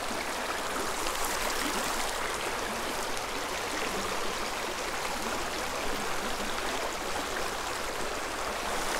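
Small creek running over a shallow, rocky riffle: a steady, even rush of water.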